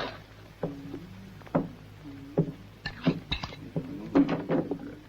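A spoon clinking and knocking against a plate of beans while eating: a string of sharp clinks with short ringing tails, about one a second at first, then coming quicker and closer together in the second half.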